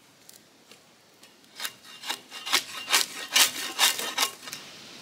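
Long-handled debarking spade scraping and peeling bark off a tamarack log in a quick run of strokes, roughly three a second, starting about a second and a half in.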